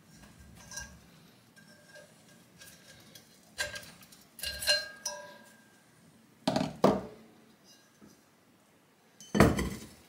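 Metal clinking and knocking as the motor-and-pump unit of a hermetic refrigerator compressor is lifted out of its cut-open steel shell and set down. Light clinks with a brief metallic ring, then a few sharp knocks, the loudest near the end.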